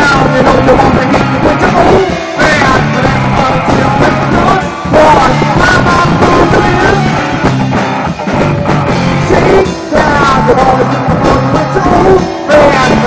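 Rock band playing live, loud and distorted in the recording, with drums, bass, guitar and a voice.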